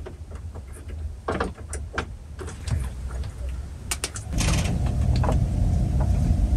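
Electric sewing machine working through glue-backed Velcro: a few clicks and knocks from the mechanism, then the machine runs steadily and louder from about four seconds in, until it stops suddenly. The glue on the Velcro keeps the machine getting stuck.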